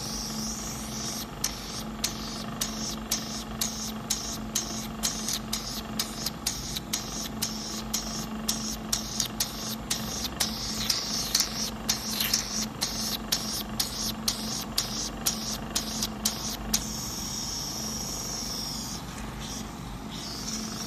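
Oxygen aqua jet peel facial machine running with a steady hum and a hiss of air from its handpiece. For about 15 seconds there are short sharp pops, two to three a second, while the handpiece is worked over the skin. Then the plain hiss returns.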